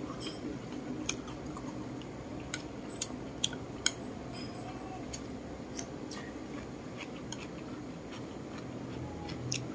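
Chopsticks clicking against a ceramic plate as food is picked up, with chewing between; a scattering of sharp taps, the loudest few close together about three to four seconds in, over a steady low hum.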